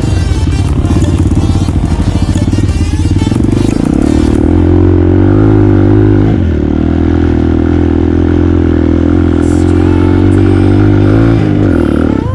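ATV engine running under way, its pitch rising and falling with the throttle. A noisy rush rides over it for the first four seconds or so, then drops away.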